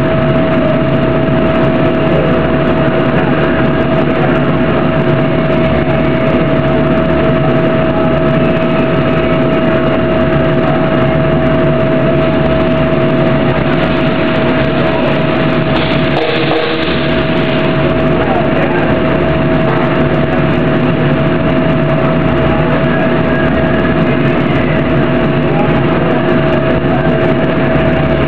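Industrial machinery of a slurry dump station running steadily as its tipping bin is lowered and raised: a loud, even hum with a constant whine and a pulsing low rumble. The sound briefly changes about halfway through.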